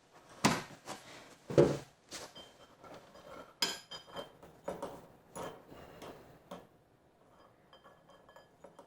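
Cutlery and dishes clinking and knocking, with a scatter of sharp taps, a few of which ring briefly like metal on china or glass.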